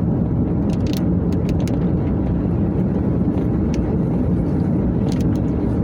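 Steady low road and engine rumble from inside a moving car's cabin, with scattered faint ticks.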